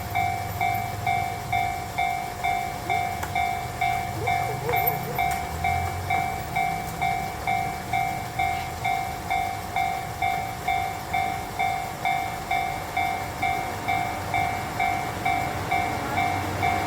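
Japanese level-crossing warning bell ringing steadily: an electronic two-tone ding repeating just under twice a second while the crossing is closed. A low rumble sits under it for the first few seconds.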